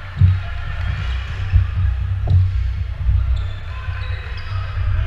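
Several dull thuds of dodgeballs striking the floor and players, over a steady low rumble.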